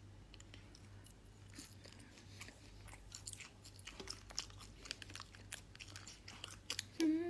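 Faint mouth sounds of someone chewing and biting French fries: a string of soft, irregular crunchy clicks.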